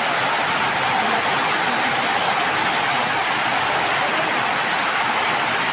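Heavy rain pouring down, a loud, steady, even hiss without a break.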